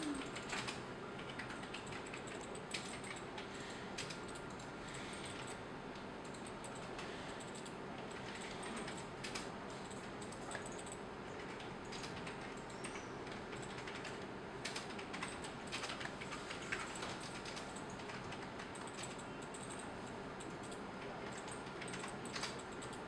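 Scattered, irregular clicking from a computer mouse and keyboard being worked, over a steady low hiss.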